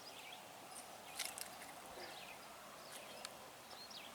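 Quiet outdoor ambience with faint, scattered bird chirps, short high notes a second or so apart, and a couple of small clicks.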